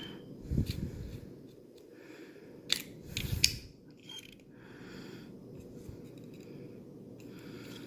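Small metal clicks and scrapes from an Outdoor Edge Slidewinder replaceable-blade knife being handled as a blade is worked into its locking slide, with a sharp click a little under 3 seconds in and a short cluster of clicks just after.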